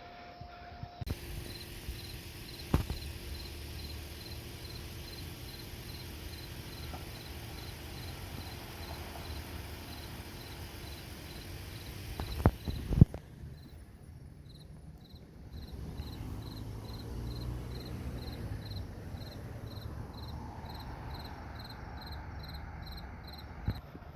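Crickets chirping in a steady rhythm of about two to three chirps a second, over a low rumble. Two sharp clicks stand out, the louder one about halfway through, where the chirping briefly drops out.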